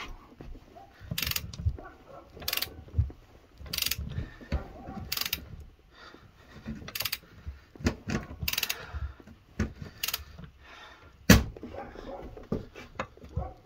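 Long-handled half-inch drive ratchet worked in steady strokes, its pawl clicking about eight times, roughly once every second and a half, with knocks from the loaded tools in between. It is tightening a lug nut against a spacer to draw a new wheel stud into a Mopar 8 3/4 axle flange.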